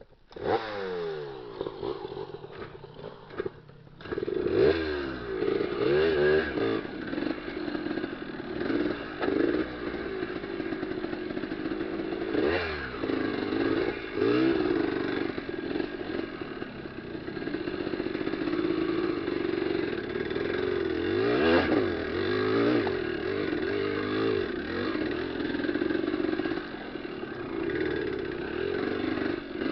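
Motorcycle engine running under way, its pitch rising and falling again and again as the throttle is opened and closed, quieter for the first few seconds and louder from about four seconds in.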